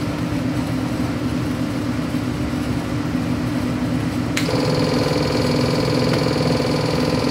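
Ford 7.3L Godzilla pushrod V8 crate engine running steadily on an engine dyno. About four seconds in there is a sharp click, and a steady whine joins the engine sound.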